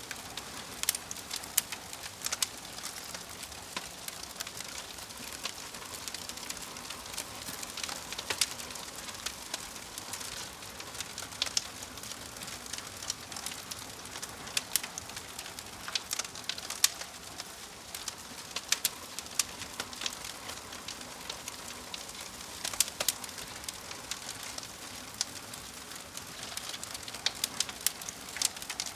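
Log fire burning in a fireplace: a steady soft hiss with frequent, irregular sharp crackles and pops from the burning wood.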